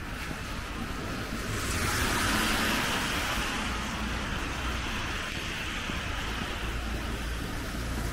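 A car passing on a rain-wet street: its tyre hiss swells to a peak about two seconds in and then slowly fades, over steady low background noise.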